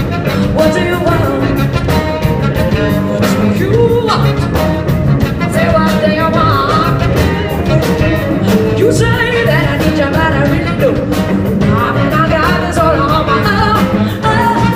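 Live band playing a loud rock groove with a steady drum beat and a melodic lead line over it.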